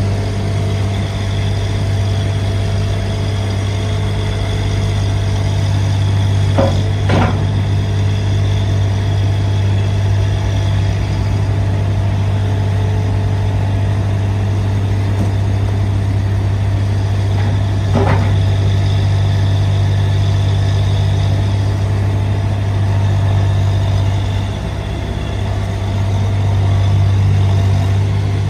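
Kubota diesel engine of a CE V1000 mini tracked skid steer running steadily with a deep, even hum. A few short clanks come about seven seconds in and again near eighteen seconds.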